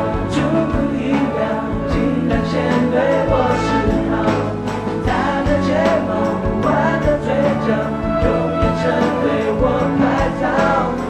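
Live rock band with electric guitars, bass and drums, a male lead voice singing over it.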